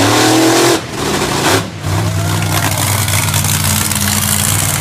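Monster truck engine revving up with a rising note for under a second, then, after a brief dip, idling with a steady low drone.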